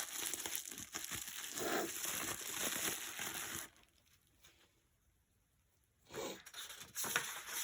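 Wrapping being crinkled and torn open by hand as a small packaged item is unwrapped. The crinkling stops abruptly about halfway, and a few brief rustles follow near the end.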